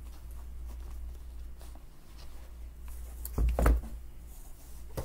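Handling noise as shoes and clothes are moved about in an open cardboard box: faint rustles and light knocks over a steady low hum, with one louder muffled thump and rustle about three and a half seconds in.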